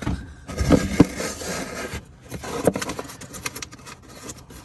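Hands feeling around inside a car's plastic air box, scraping and knocking against the plastic, with a few sharper knocks about a second in.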